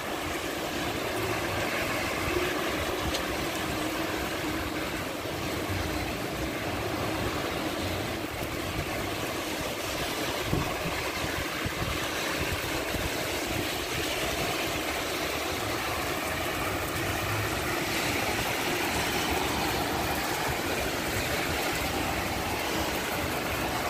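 Steady hiss of rain and of car tyres on the wet road, with a low, uneven rumble of traffic underneath.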